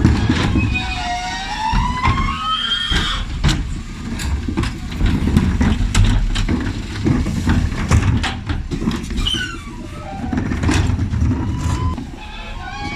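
Dennis Elite 6 bin lorry running while its Terberg OmniDEKA lifter tips wheelie bins. A rising whine sounds in the first few seconds and again near the end, over many bangs and clatters of bins against the lifter and the engine's low rumble.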